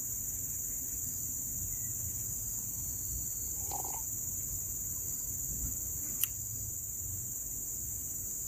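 Steady high-pitched insect chorus, crickets or cicadas, droning without a break. A short sip from a metal mug comes about four seconds in, and a single sharp click a little past six seconds.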